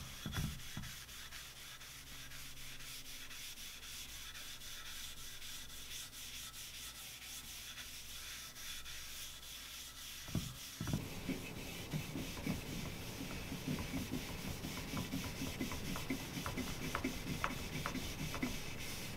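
Applicator pad rubbing oil finish onto a walnut board in wiping strokes; the rubbing grows louder about halfway through, with faint light taps.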